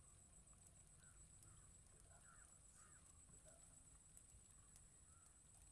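Near silence: faint outdoor ambience, with a few soft, short chirps scattered through it over a steady, thin high-pitched whine.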